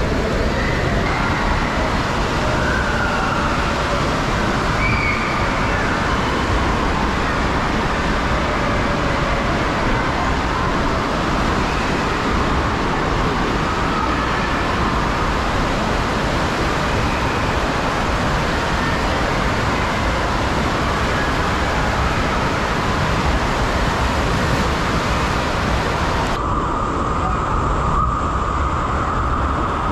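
Indoor water park din: a steady rush of running and splashing water, echoing through the large hall. Near the end it changes abruptly to a duller rush with less hiss.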